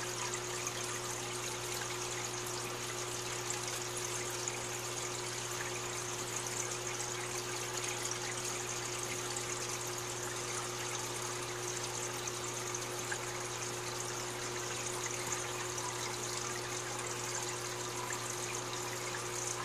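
Running aquarium: a steady trickle of circulating water under a constant low motor hum, unchanging throughout.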